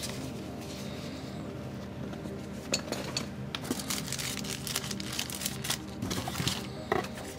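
Background music, with rustling, crinkling and light knocks of cardboard and paper being handled in an open box, thickest from about three seconds in.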